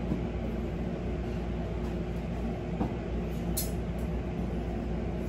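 Steady hum of a window-type air conditioner running, with one short tick about three and a half seconds in.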